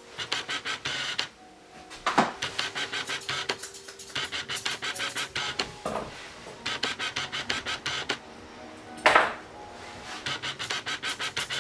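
Grooming shears snipping through a dog's coat in quick runs of rapid, even clicks, each run lasting about a second with short pauses between. Two louder, longer scrapes come about two seconds in and again near nine seconds, over quiet background music.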